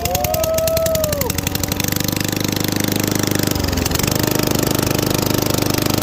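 Lawn mower engine running straight-piped with the muffler deleted, its exhaust a rapid, even popping that speeds up about two seconds in.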